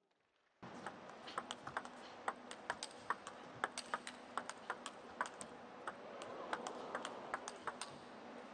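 Table tennis rally: sharp, irregular clicks of the ball striking paddles and the table, several a second, over faint arena background noise. The clicks start about half a second in.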